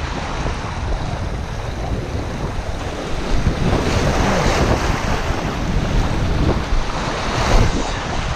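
Sea waves washing and breaking over shoreline rocks, with heavy wind buffeting the microphone. The wash surges louder about halfway through and again near the end.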